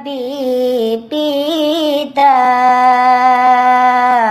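A solo voice sings a Maguindanaon Islamic song for students. It holds long, drawn-out notes with small melodic turns. There are brief breaths about one and two seconds in, and no accompaniment is heard.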